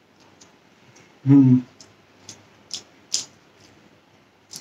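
Eating noises: a handful of sharp light clicks spread through the seconds, with a short hummed "mm" about a second in.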